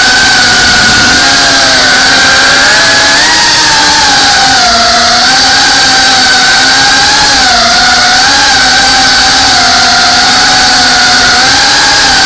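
FPV quadcopter's brushless motors and propellers whining loudly from close by, a steady buzz whose pitch wavers up and down as the throttle changes through the turns.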